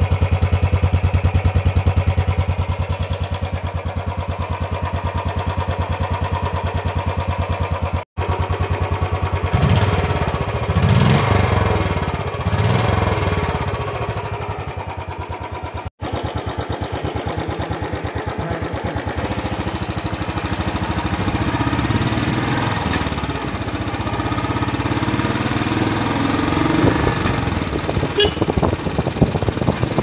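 Royal Enfield Bullet 350 BS6's 346 cc single-cylinder engine ticking over with an even thump from the stock exhaust. In the middle it is revved up and down several times, and later it pulls steadily as the bike is ridden. The sound cuts out briefly twice.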